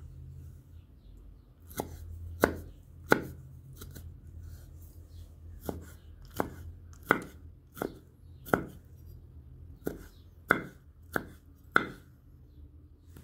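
Chef's knife dicing a peeled tomato on a wooden cutting board: about a dozen sharp separate knocks of the blade on the board, about one every 0.7 seconds, starting about two seconds in with a short pause around four seconds in.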